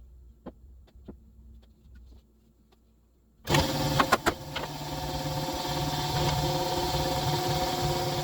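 A few faint clicks and taps, then about three and a half seconds in a power tool's electric motor starts abruptly and runs steadily with an even hum, with a few sharp clicks just after it starts.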